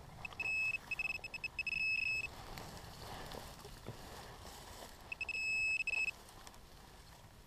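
Handheld metal-detecting pinpointer probe beeping in a high tone: a stuttering run of beeps that settles into a near-steady tone, then about a second of steady tone past the middle. It is sounding on a buried metal object in the dug hole, here a brass latch.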